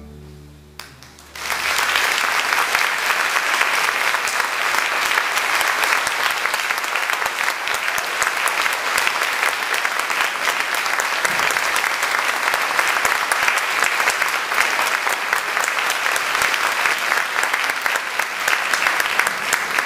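The string orchestra's final chord dies away, and about a second and a half in an audience breaks into applause that goes on steadily, fading near the end.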